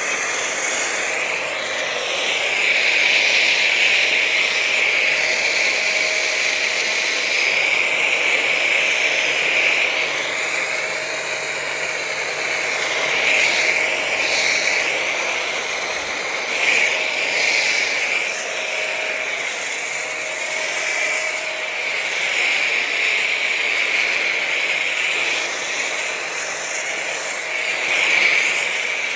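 Foam cannon on a 2300-watt Ballorex electric pressure washer spraying foam in a steady hiss, with a faint steady whine from the washer's motor under it. The hiss dips and swells a little as the spray is swept over the car.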